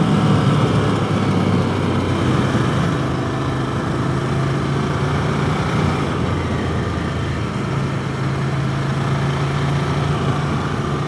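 Ducati Scrambler Desert Sled's air-cooled L-twin engine running steadily as the motorcycle rides along. Its pitch drops slightly about two seconds in.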